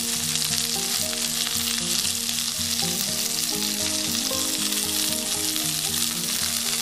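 Masala-coated pearl spot (karimeen) fish shallow-frying in hot oil in a flat pan: a steady, even sizzle. Soft background music with held notes plays underneath.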